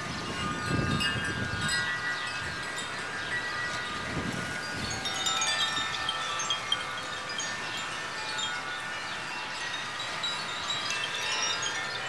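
Several Koshi chimes, bamboo-cased chimes with tuned metal rods, ringing together as the wind swings their clappers: many overlapping, lingering tones. Wind rumbles on the microphone in two gusts, near the start and again about four seconds in.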